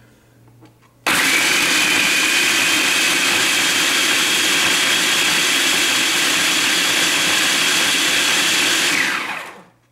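Electric food processor grinding old-fashioned oats into a coarse flour: the motor starts abruptly about a second in, runs steadily with a high whine over the rattling oats, then winds down with a falling pitch near the end.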